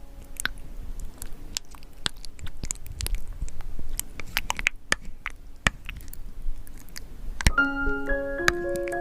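Irregular wet, sticky clicks of thick paint being stirred and smeared while colours are mixed. About seven and a half seconds in, a piano-like keyboard melody starts and carries on over the clicks.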